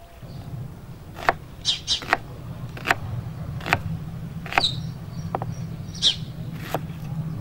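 Large kitchen knife slicing through a white onion and knocking on a wooden cutting board, a sharp cut just under once a second, with a few short chirps in between.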